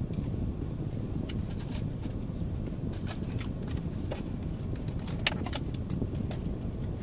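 Steady low rumble of a car cabin, with scattered short crunching clicks of crispy fried chicken being chewed, the sharpest a little past five seconds in.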